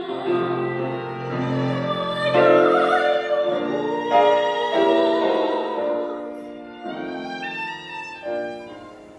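Lyric-coloratura soprano singing a romance with violin and piano accompaniment. The music grows quieter and fades near the end.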